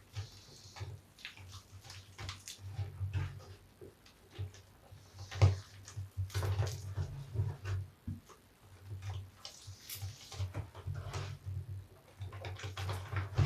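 A large bath sponge soaped with soap scraps being squeezed and kneaded by hand: irregular wet squelching and crackling of lather, with a few short hissy squishes.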